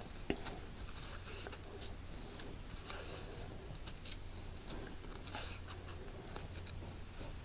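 Faint rustling and rubbing of fabric ribbon being wound around a bow's centre by hand: soft scratchy swishes and a few light ticks, over a steady low hum.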